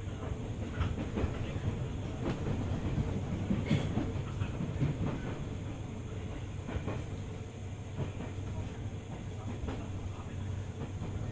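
Running sound inside a 205 series 600-subseries electric multiple unit: a steady low rumble and hum of the car rolling on the track, with scattered clicks and knocks from the wheels and rails.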